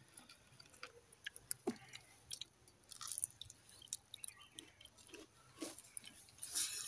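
Quiet chewing and crunching of fried potato chips, with scattered soft clicks and squelches of fingers mixing watered rice in steel bowls.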